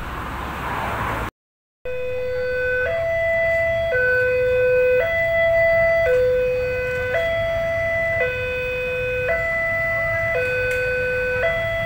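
Railway level-crossing warning alarm sounding two alternating electronic tones, a lower and a higher one, each held about a second, over the low hum of waiting traffic. It starts after a short break about two seconds in, following a stretch of rushing noise.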